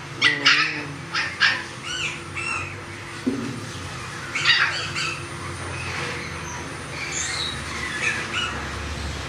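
Puppies yelping and squealing in a series of short high-pitched cries, many in quick succession at the start, a loud cluster again around the middle, then fewer and fainter.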